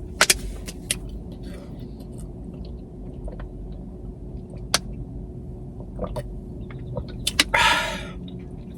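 A person chewing food, with scattered sharp mouth clicks and a short louder rustle of noise near the end, over a steady low electrical hum.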